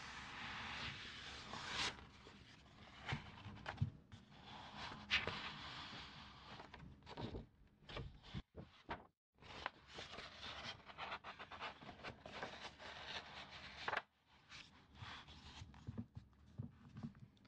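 Soft scratching and rubbing strokes on the paper of an old calendar page, with a few sharper taps and a brief pause about halfway through.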